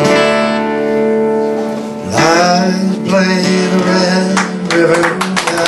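Acoustic guitar played live with ringing chords, and a man's voice singing over it from about two seconds in.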